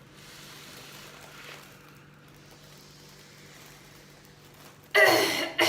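Faint, steady breathing in and out over a bowl of grated raw onion, then about five seconds in a sudden loud forceful burst of breath.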